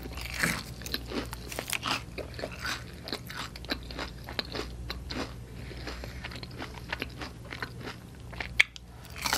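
Chewing a thick-breaded fried onion ring, with many small, irregular crunches as the breading breaks up and one sharper crack near the end.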